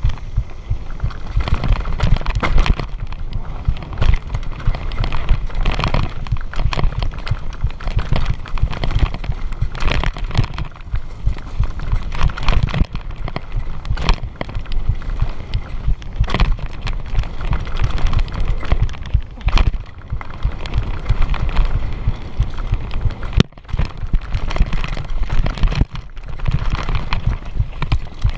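Downhill mountain bike ridden fast over a rough, rutted dirt trail: a steady low rumble of wind buffeting and trail vibration, broken by frequent sharp rattles and knocks from the bike and tyres hitting bumps.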